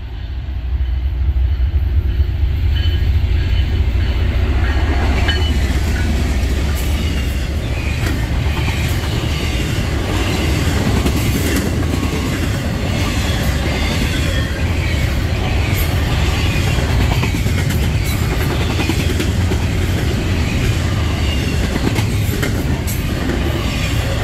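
Two GE ES44DC diesel-electric locomotives approach and pass close by in the first seconds, then a double-stack intermodal train's well cars roll past in a steady loud stream. The wheels click over the rail joints, with short, high wheel squeals.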